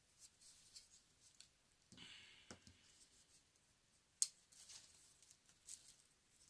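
Faint handling of folding knives: light scraping and rustling, with one sharp click about four seconds in.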